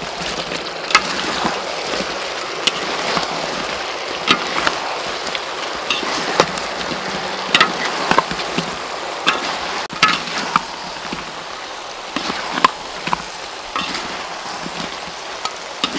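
Fried chicken wings being tossed in chili sauce in a metal wok: a steady sizzle, with irregular sharp clinks and scrapes of metal spatulas against the wok.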